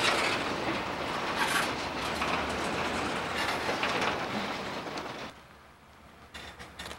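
McCloud River Railroad boxcars rolling past on the rails: a steady rolling noise of wheels on track, which drops away for about a second near the end and then returns.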